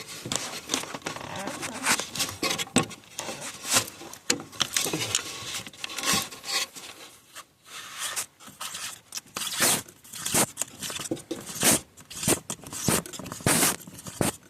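A screwdriver prying and scraping at the fuel filter cap on a diesel's fuel bowl to break it loose: an irregular run of scrapes, clicks and knocks as the cap is worked and handled.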